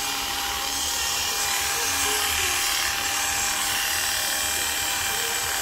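Electric hair clipper buzzing steadily as it cuts hair, fading the side of a short afro.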